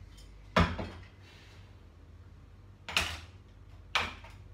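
Three sharp knocks from a ring light's tripod stand being handled and adjusted: the loudest about half a second in, then two more near the end, a second apart.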